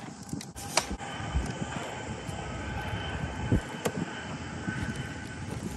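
Sharp knocks as a thrown hatchet strikes a wooden stump target: one right at the start and another just under a second in, with a few lighter knocks later as it is worked loose. Under them runs a steady rumbling outdoor background.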